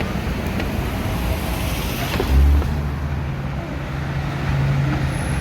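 Motor vehicle engine running with a steady low hum and road noise, with a single low thump a little over two seconds in.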